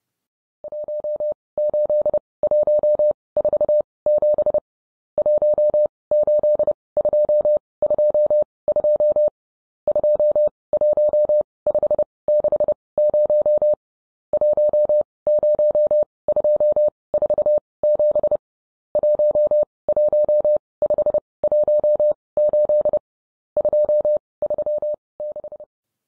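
Morse code sent as a single steady beeping tone, keyed in groups of short and long beeps with short pauses between them. It fades in at the start and fades out near the end.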